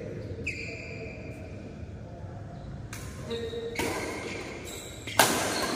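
A badminton racket strikes a shuttlecock once, a single sharp crack about five seconds in, with a short ring of the hall after it.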